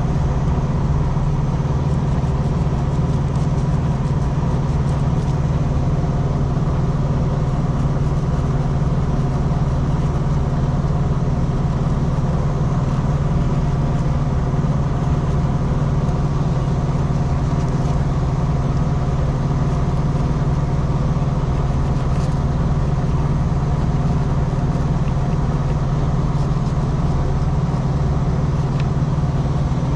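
Truck engine idling steadily, an even low hum with no change in speed.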